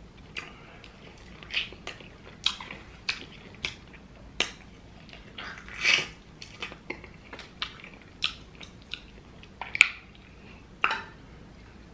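Close-miked mouth sounds of someone eating saucy hot wings: irregular wet lip smacks and chewing clicks, the loudest about six seconds in and again near ten seconds.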